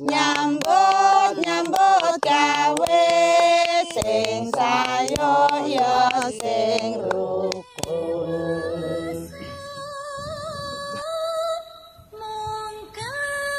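Background music: a Javanese-language song with a sung vocal line for roughly the first eight seconds, giving way to held instrumental notes.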